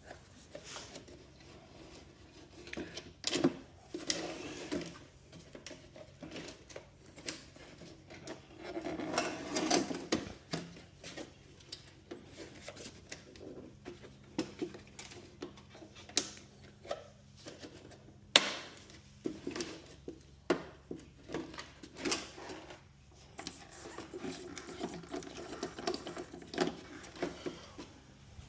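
Irregular clicks, knocks and short rattles of tools and metal hardware being handled during garage door opener repair work, with a faint steady hum underneath.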